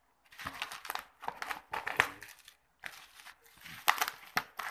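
Plastic bubble wrap crinkling and rustling as it is cut open with scissors and pulled apart, with sharp snips about two seconds in and again near four seconds.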